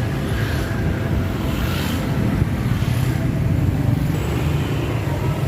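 Steady rumble of road traffic, vehicle engines running together.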